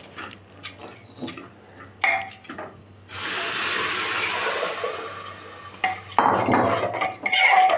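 A spoon clicking and scraping against an aluminium pressure cooker as rice is stirred. About three seconds in, a bowl of water is poured into the hot cooker with a loud rushing hiss lasting about three seconds. Clattering stirring and splashing follow.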